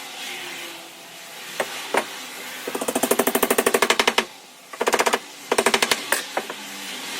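A hand-held power tool hammering rapidly in three bursts, the first about a second and a half long, after two single sharp knocks.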